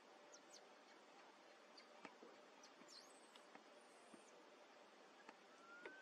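Near silence: faint outdoor ambience with a few faint, short, high chirps and soft clicks scattered through it.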